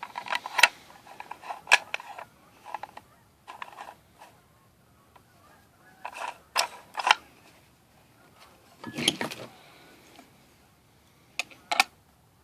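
Metal parts of an Oster meat grinder clinking and knocking as they are handled and fitted together, the feed screw being set into the grinder housing. Irregular clicks come in small clusters with pauses between, and a duller thump about nine seconds in.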